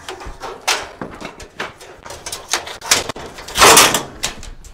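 Scattered knocks and plastic clatter as the black plastic base panel of a Kenmore washing machine is struck with a hammer and pried off, with one louder, longer clatter about three and a half seconds in.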